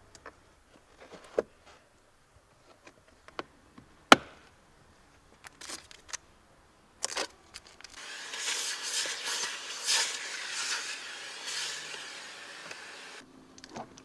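Scattered plastic clicks and knocks as the cabin air filter housing behind the glovebox is handled, with one sharp knock about four seconds in. About eight seconds in, a loud rushing hiss of air through a hose nozzle starts, wavering as the nozzle is worked around the glovebox opening, and stops abruptly about five seconds later.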